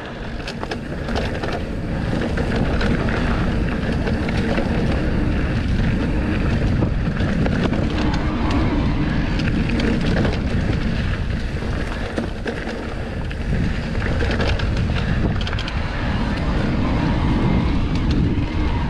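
Wind buffeting the microphone while a Trek Rail 7 electric mountain bike rolls over a dirt trail, with many small knocks and rattles from the bike. The noise is heavy and steady throughout.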